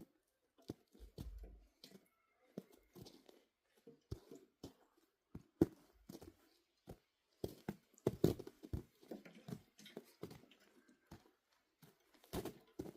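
Irregular footsteps crunching on icy, frozen ground.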